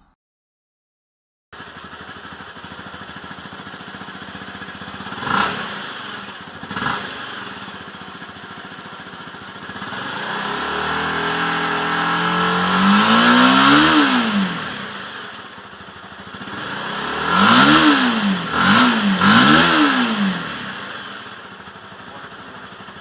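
A stock 250cc sport motorcycle engine idling, with two short throttle blips, then a long rev climbing to a high peak and dropping back to idle, followed by three quick revs in a row near the end.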